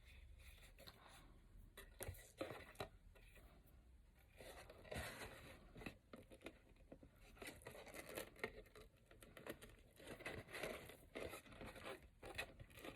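Faint rustling and soft ticks of a red ribbon being handled and tied into a bow around a cardstock box lid, in short uneven bursts.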